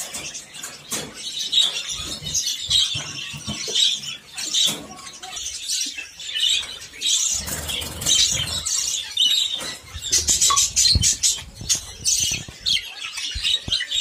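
Many budgerigars chattering and chirping rapidly in their breeding cages. Short knocks and rattles come from the wire cage and clay nest pots as they are handled.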